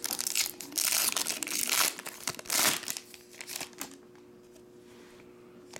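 Foil wrapper of a Topps Chrome Black baseball card pack crinkling and tearing as it is handled and opened by hand, in several loud bursts that stop about four seconds in.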